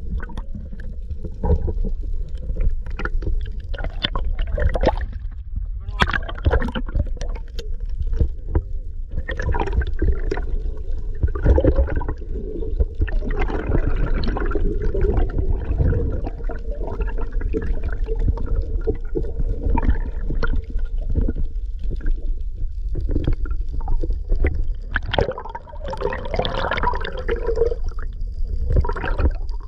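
Water sloshing and gurgling around a small boat, over a steady low rumble, with scattered knocks and indistinct voices now and then.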